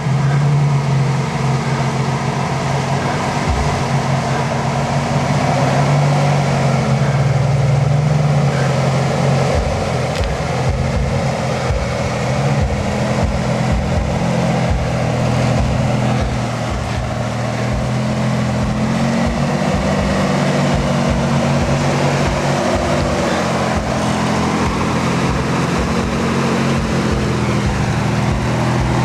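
Lifted Toyota 4Runner's engine running at low revs as it crawls over boulders, its note rising and falling a little with the throttle. Short low thumps come and go through most of it.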